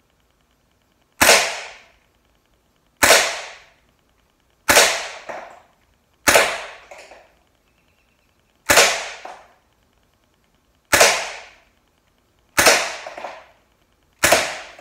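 Gamo PT-85 Socom .177 CO2 blowback pellet pistol firing eight single shots, spaced one and a half to two and a half seconds apart. Each shot is a sharp crack with a short ring-out.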